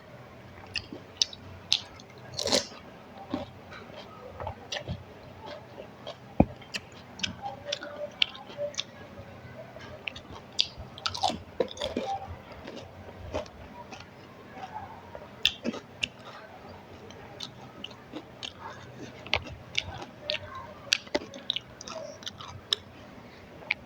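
Close-up eating of pani puri (phuchka): wet chewing broken by many sharp, irregular crunches of the crisp puri shells.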